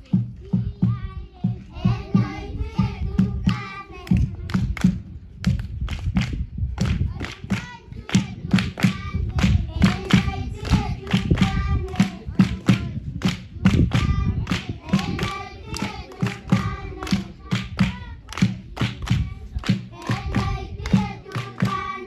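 A group of voices singing together, with hands clapping on a steady beat of about two to three claps a second, along with thuds.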